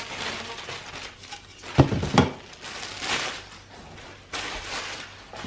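Rustling and handling of a cordless stick vacuum's plastic parts and packaging, with two sharp knocks about two seconds in.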